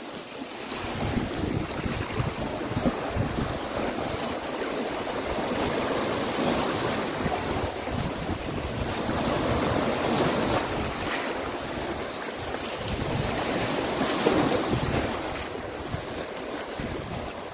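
Sea waves breaking and washing over shoreline rocks, with wind buffeting the microphone in uneven low rumbles.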